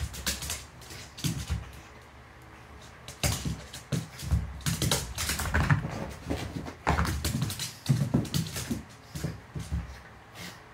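A small dog's claws clicking and scrabbling on a hardwood floor in irregular bursts, with soft bumps of its body as it rolls and wriggles on its back.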